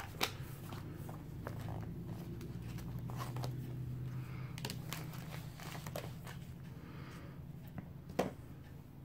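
Washi tape being peeled off the roll and torn, with small taps and paper handling against a steady low hum.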